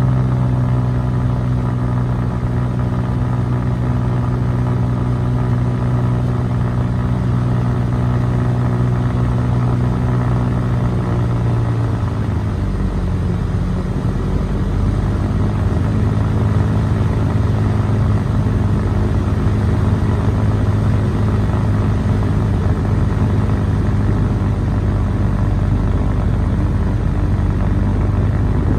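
Icon A5 amphibian's Rotax 912 four-cylinder engine and pusher propeller droning steadily, heard from inside the cockpit on the approach. About twelve seconds in the pitch drops as power comes back for the water landing, and it runs on at the lower pitch with a rushing noise as the plane settles onto the pond.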